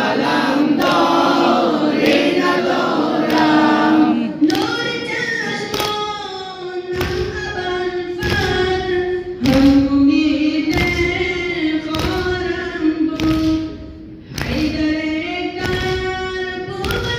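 Afghan nawha, a Shia mourning lament, chanted in Persian with long, wavering held notes. A steady beat of thumps runs under the voice about once a second.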